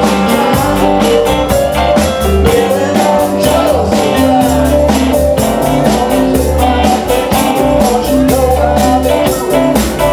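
Live band playing: a man singing into a microphone over electric guitar, bass and drums keeping a steady beat.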